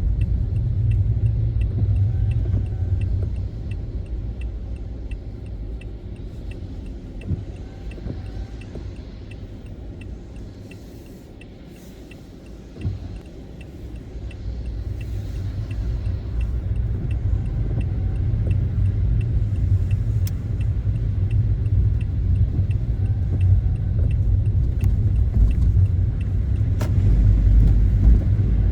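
Car driving on a snowy road: a low road-and-engine rumble that fades in the middle as the car slows, then builds again as it picks up speed. A faint regular ticking, about two a second, runs underneath.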